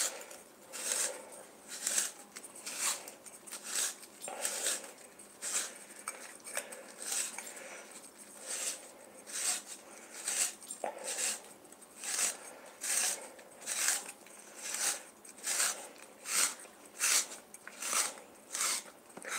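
Handheld spiralizer shaving a courgette into strands: a regular scraping crunch with each twist, about one and a half strokes a second.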